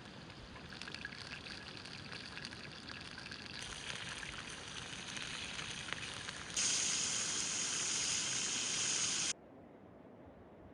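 Rushing river water, a steady hiss that jumps abruptly louder and brighter a few times and cuts off sharply near the end.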